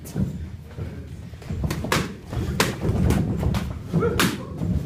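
Kickboxing exchange: gloved punches and shin-padded kicks landing as a run of sharp smacks, six or seven of them, closest together in the second half.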